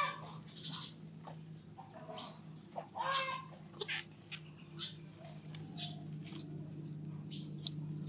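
Scattered short animal calls and high chirps, the loudest about three seconds in, over a faint steady low hum.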